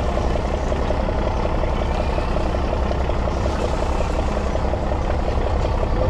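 Boat engine idling steadily: a low drone with a fast, even ticking running through it.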